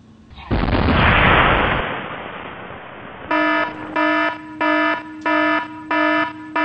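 A loud rushing blast starts about half a second in and fades over about two seconds: a Sea Dart missile launch set off by a miswired light switch. Then a pulsing alarm tone begins, about three beeps every two seconds.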